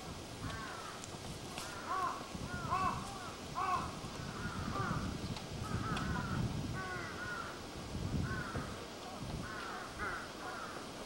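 Crows cawing repeatedly, in short runs of two to four calls, several times over.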